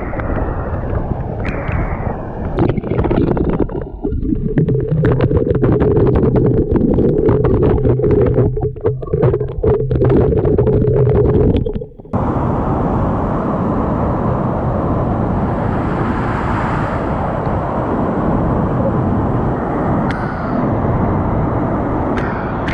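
Rushing water of a waterfall, a steady loud rush of noise. For the first half, wind buffets the microphone hard; after a cut about twelve seconds in, the water is heard alone.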